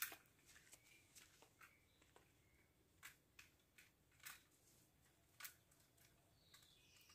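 Near silence, with a few faint sharp clicks and taps scattered through it and faint high chirps, a pair of falling ones near the end.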